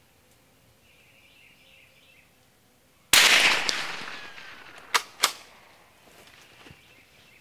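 A single shot from a Savage B22 FV-SR bolt-action .22 LR rifle firing near-subsonic Federal Gold Medal Target ammunition, a sharp report whose ringing tail dies away over about a second. About two seconds later, two sharp clicks a quarter second apart.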